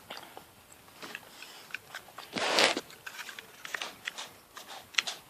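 Scattered plastic clicks and light rattles of Lego Technic parts as the car is handled, with a short noisy rustle about two and a half seconds in and a sharp click near the end.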